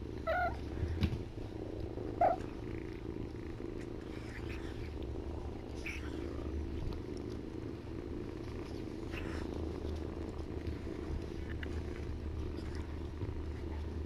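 Kittens purring steadily close to the microphone, with two short, high kitten squeaks in the first few seconds.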